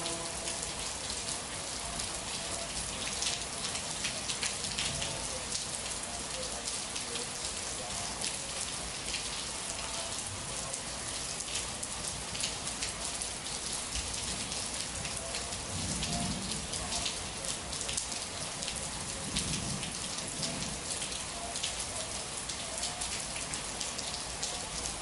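Steady rain falling, a dense patter of individual drop ticks over a continuous hiss, with two soft low swells about two-thirds of the way through.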